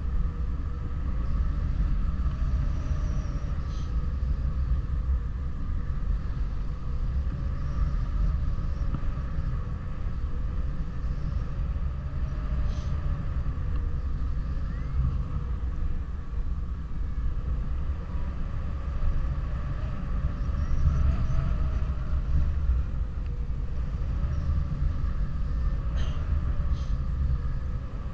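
Steady low wind rumble buffeting the camera microphone of a paraglider in flight, with a faint, slowly wavering hum underneath.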